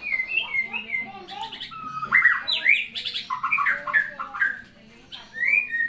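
Rapid, high-pitched animal cries: many short calls, mostly falling in pitch, crowding over one another and loudest a couple of seconds in.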